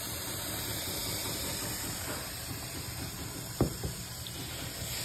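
A steady hiss, then a bowl of soapy water set down on a stone countertop with a sharp knock about three and a half seconds in, followed by a lighter knock.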